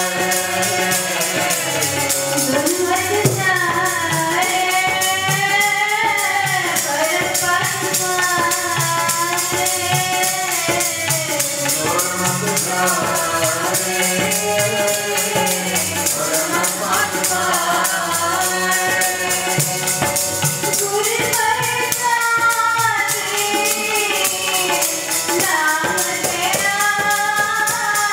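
Sikh kirtan: a woman's voice leads the hymn with other voices joining, over harmonium and tabla, while hand-held rattles keep up a steady jingling shake throughout.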